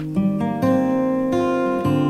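Background music: acoustic guitar strumming chords, with a new chord struck about every half second.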